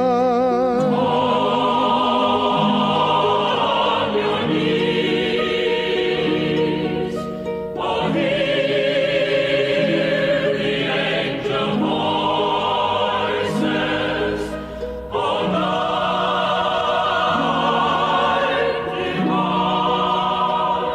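Music: a choir singing slow, sustained chords, in a classical or sacred Christmas style.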